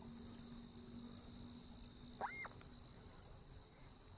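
A steady, high-pitched trilling chorus of insects, with a single short rising-and-falling chirp about two seconds in.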